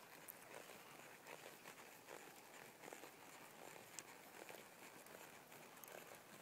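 Faint, irregular hoofbeats of a Quarter Horse mare under saddle on soft arena dirt, as light scattered taps.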